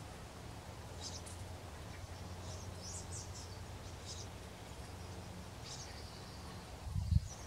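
Faint outdoor ambience: a steady low rumble with scattered short, high bird chirps, and a brief low thump near the end.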